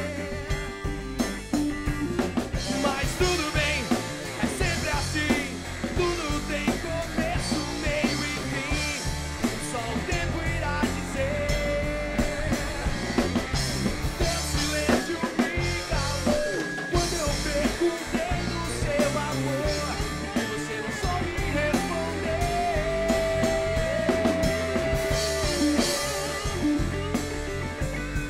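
Rock band playing live: drum kit, bass and electric guitars, with a lead line of bending and held notes over the steady beat.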